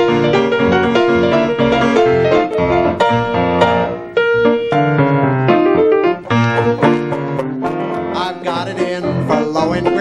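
Small ragtime band playing an instrumental break: piano carrying the tune in quick struck notes, over upright string bass and banjo.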